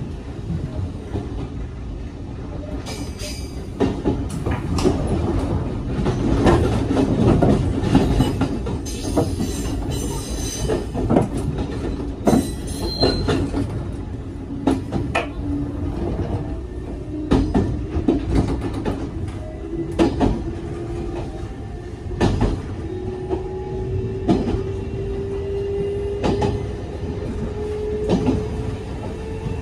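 Cabin noise inside a running JR 381 series limited express electric train: a steady low rumble with irregular sharp clacks of the wheels over rail joints. Through the second half a steady tone slowly rises in pitch.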